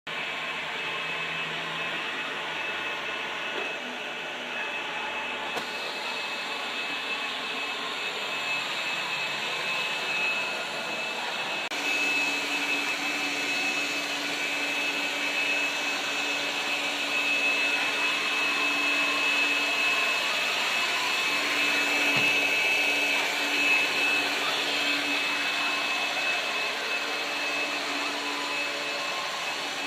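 iRobot cleaning robot running its motors as it cleans the floor: a steady vacuum-type whir with a thin high whine. A lower hum joins about twelve seconds in, and the sound grows a little louder toward the end.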